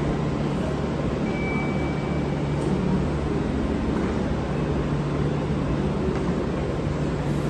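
Steady hum of a JR Central 315 series electric train standing at the platform, its onboard equipment running, over station platform hubbub. A faint, thin high tone sounds briefly about a second and a half in.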